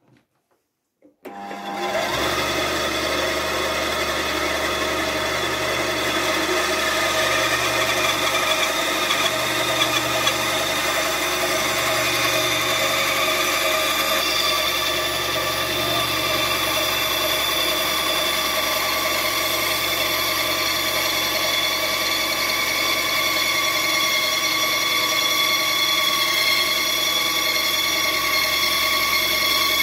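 Small benchtop bandsaw switched on about a second in, then running steadily while a turned birch hedgehog blank is pushed through the blade to cut a flat base.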